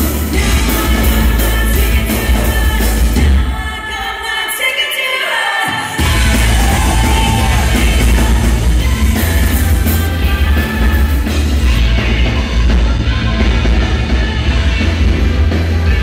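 Live noise-pop/rock band playing loud through a PA, with heavy bass and drums under a woman's singing. The bass drops out for a couple of seconds about three and a half seconds in, and the full band comes crashing back at about six seconds.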